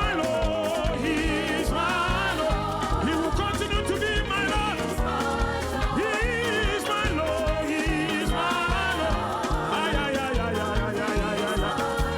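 Upbeat African gospel praise music with a steady driving beat and bass under a wavering lead melody.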